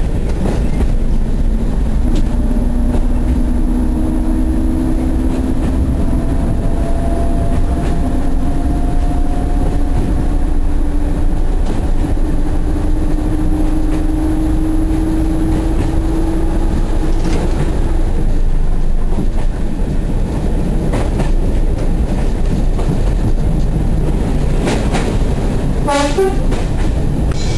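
Heritage diesel train running along the line, heard from the driver's cab: a steady engine drone whose pitch slowly rises over the first half, with a few clicks from the rails. Near the end comes a brief falling tone.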